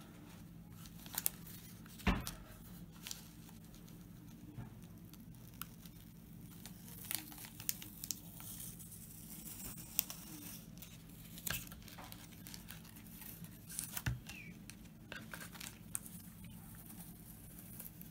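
Black adhesive masking tape being slowly peeled off a painted, V-carved sign, giving irregular crackles and short tearing sounds over a low steady hum.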